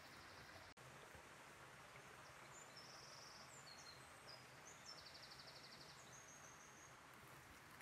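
Near silence with faint songbirds: short high chirps and a few rapid trills, one near the start, one about three seconds in and a longer one about five seconds in.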